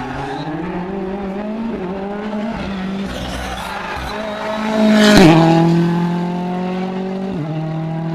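Rally car engine accelerating hard on a closed special stage, the revs climbing and dropping back at each gear change. It is loudest as it passes about five seconds in, with the pitch falling as it goes by, and it shifts up again near the end.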